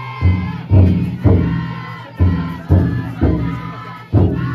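Futon daiko taiko drum beating in groups of three strokes about half a second apart, with a pause between groups, while a crowd of young men chant and shout along.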